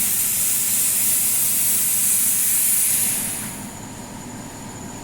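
CNC plasma cutter's torch hissing steadily as it cuts sheet metal, then cutting off about three seconds in, leaving a faint steady high whine and a low hum from the machine.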